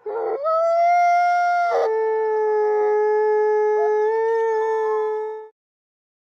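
A long canine howl in two held notes, the first higher and the second lower, each starting rough and then steadying. It stops abruptly about five and a half seconds in.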